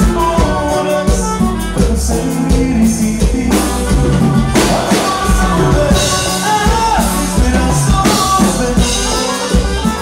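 Norteño band music for dancing, with drums, a steady bass line and singing.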